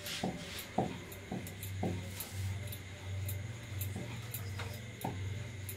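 Ruti cooking on a non-stick tawa: a few light clicks and taps of hands and pan over a low steady hum.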